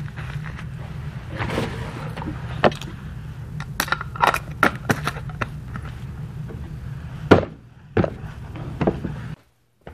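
Plastic hair-product jars and bottles handled on a barber's counter: a string of sharp clicks and knocks as lids are worked and containers are picked up and set down, the loudest knock about seven seconds in. A steady low hum runs underneath and stops abruptly near the end.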